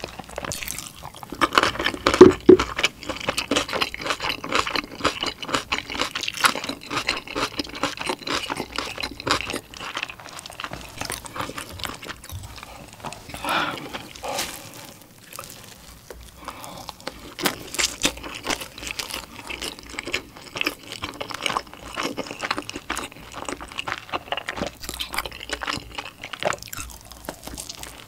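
A person eating: loud crunching bites of yellow pickled radish (danmuji), strongest about two seconds in, then steady wet chewing of dumplings.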